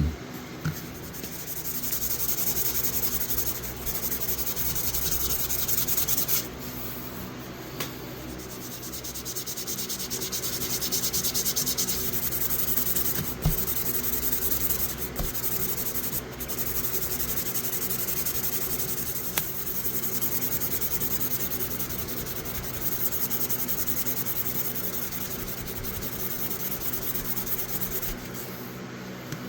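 A rusty folding knife being hand-sanded with 2000-grit sandpaper: steady rubbing strokes that come in stretches of a few seconds, with short pauses between.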